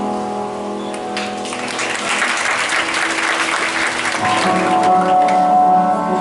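Audience applause swelling over background music about a second in and dying away about three seconds later, while the music carries on with long held notes.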